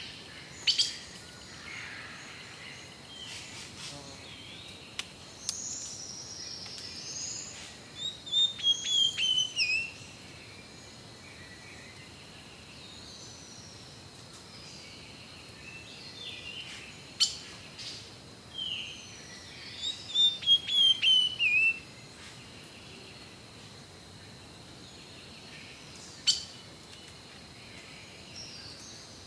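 Rainforest birds calling over a steady high ambient tone. A phrase of quick, falling notes comes twice, about twelve seconds apart, with other short calls between, and a few sharp single snaps.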